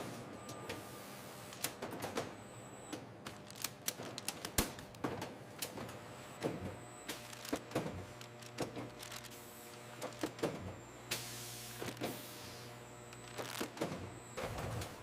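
Factory machinery running: irregular mechanical clicks and clanks over a steady low hum.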